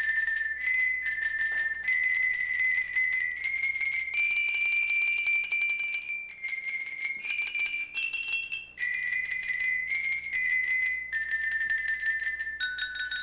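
Tankin, a xylophone with bars of Kishu binchotan charcoal, played with mallets: a melody of bright, ringing high notes, each held as a fast roll of repeated strikes, the pitch changing every half second to two seconds.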